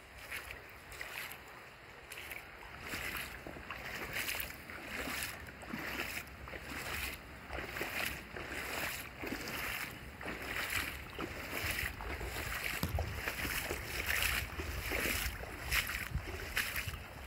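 A rain-swollen creek in flood, its muddy water rushing fast over the bed, a steady rush that swells and fades about once a second.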